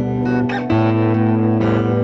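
Background music led by guitar, with held notes that change to a new chord under a second in.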